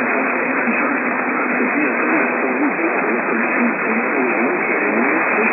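Narrow-band radio reception with loud, steady static hiss, a faint voice talking underneath it.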